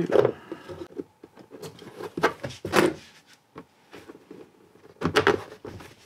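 Small steel bolts and nuts clinking in a clear plastic hardware organizer as hands pick through it, with the plastic case knocking. It comes as a string of separate clicks and clunks, the loudest at the start and about two, three and five seconds in.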